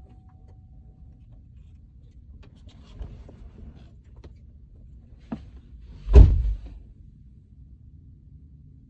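Low steady rumble with a sharp click a little past five seconds in and one loud, heavy thump about a second later.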